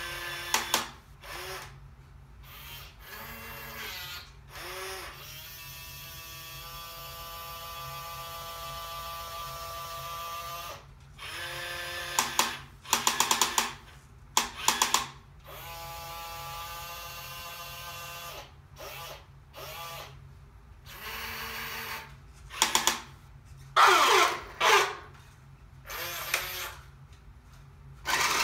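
Battery-powered 1988 New Bright toy fire truck's small electric motor and plastic gearing whining in runs of several seconds as the aerial ladder extends and the truck moves, broken up by short, loud bursts.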